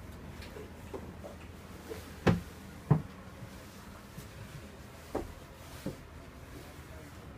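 Knocks and bumps as someone moves about inside a yacht's cabin: two loud knocks a little over two and about three seconds in, then two softer ones past five seconds, over a faint low hum.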